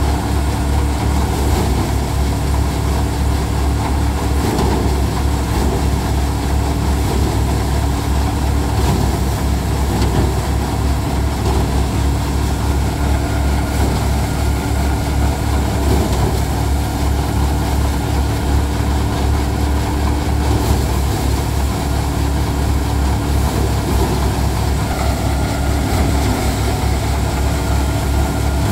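A tractor engine and the five-fan paddy thresher it powers, running loudly and steadily without change.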